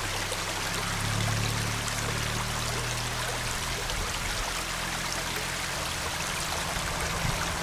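Shallow stream running steadily over a stony bed.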